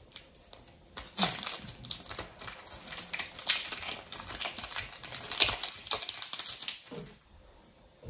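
Foil wrapper of a Pokémon booster pack being torn open and crinkled in the hands: an irregular run of crackles from about a second in until near the end.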